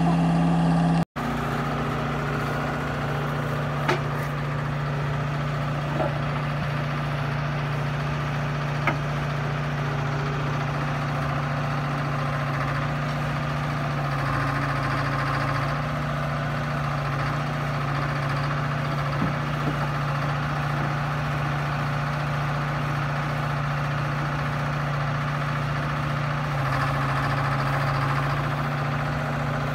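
Hy-Hoe 685B excavator's diesel engine idling steadily, with a few faint clicks.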